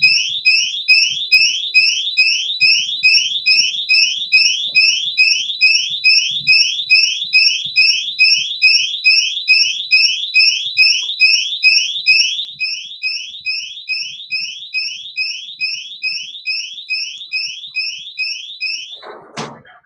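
Yale YDM3168 smart door lock's intrusion alarm sounding, set off because the door was opened while the lock was still locked: a loud electronic siren of rising chirps, about three a second. It grows fainter in its second half and stops right after a short knock near the end.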